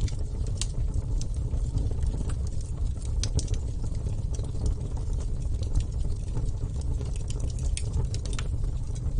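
Wood fire burning: a steady low noise from the flames, with sharp crackles and pops scattered irregularly, a few each second.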